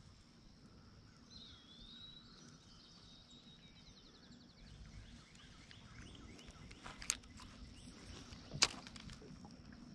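Faint outdoor ambience with birds singing, curving and trilling notes in the first half. Two sharp clicks come about seven and eight and a half seconds in.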